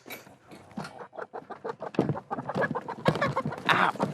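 Hens clucking and squawking while being caught and handled, with many short knocks and rustles and a louder burst near the end.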